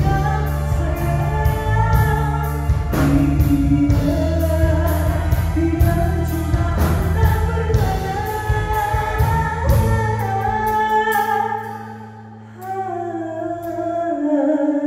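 A male singer singing live into a handheld microphone, backed by a live band with drums, bass guitar and electric guitar. About eleven seconds in the drums stop and the backing thins to a held low note under the voice.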